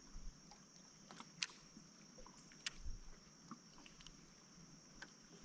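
Quiet boat ambience: a few light clicks and knocks of fishing gear in a boat, two sharper ones about a second and a half and nearly three seconds in, over a steady high-pitched hiss.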